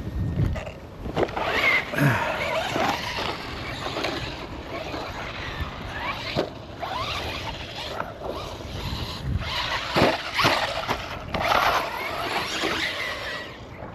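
Brushless motor of a Traxxas Rustler RC truck on a 3S battery, a whine that rises and falls in bursts as the throttle is worked.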